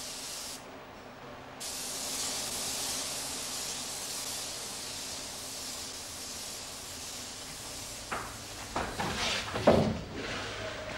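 Compressed-air spray gun hissing steadily, stopping for about a second near the start and then starting again. About eight seconds in come a run of sharp knocks and thuds, the loudest near the end.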